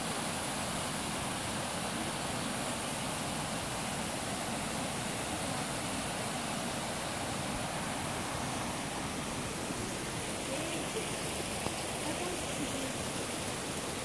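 Small mountain waterfall and stream rushing over boulders: a steady, even rush of water.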